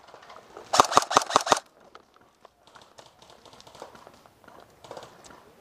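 A short burst of airsoft rifle fire: about six rapid shots in under a second, each a sharp crack. Faint scattered ticks follow.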